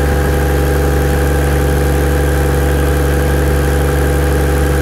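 Toyota 1HZ 4.2-litre inline-six diesel idling steadily at a constant speed on its first running checks after a rebuild, with the oil pressure being watched on a test gauge.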